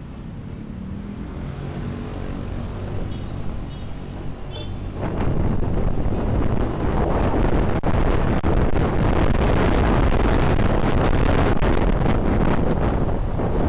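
Honda Vario 125 scooter's single-cylinder engine rising in pitch as it pulls away, with traffic around it. From about five seconds in, loud steady wind noise on the microphone at riding speed covers the engine.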